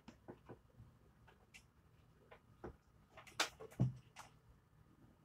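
Cardboard ice cream carton and spoon being handled: faint scattered taps and scrapes, with a couple of louder knocks about three and a half seconds in.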